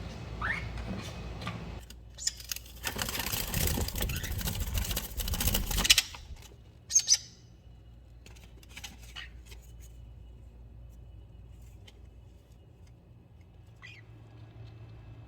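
Small pet birds chirping: a short rising chirp, then a few seconds of loud rustling, then two sharp high calls close together, followed by faint clicks and one brief call near the end.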